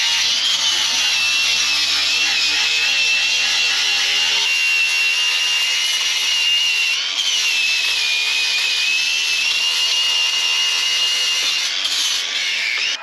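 Angle grinder running steadily under load, its disc grinding the paint off a metal surface with a high whine that wavers slightly in pitch, then stops abruptly near the end.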